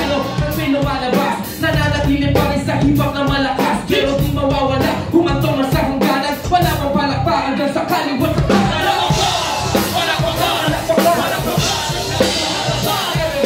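Live band music, with a rapper rapping over it into a microphone.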